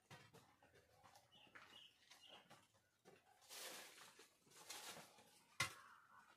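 Faint rural ambience: a few soft bird chirps, some light rustling, and a single sharp click about five and a half seconds in.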